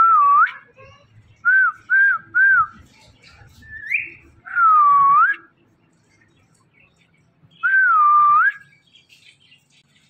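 Indian ringneck parakeet whistling: seven clear whistles. The first dips then rises, three short ones follow in quick succession, then a quick rising note and two longer whistles that dip and rise again, about five and eight seconds in.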